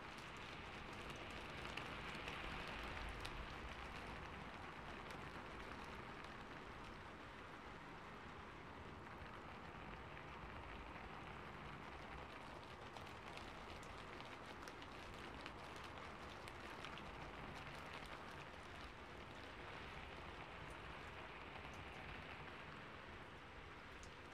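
Steady rainfall: an even wash of falling drops with fine individual ticks through it, swelling slightly a couple of seconds in.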